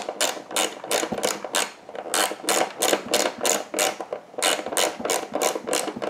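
Ratcheting screwdriver clicking in quick repeated back-and-forth strokes, about three a second with two short pauses, as it drives a screw.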